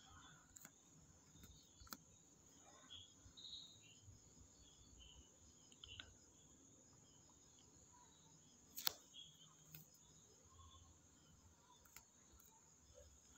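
Near silence: room tone with a few faint, scattered clicks, the clearest about nine seconds in.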